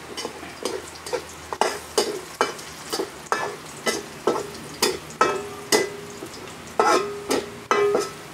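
Metal spatula scraping and stirring in a wok, about two or three strokes a second, over a steady sizzle of meat, chili, onion and garlic frying in oil.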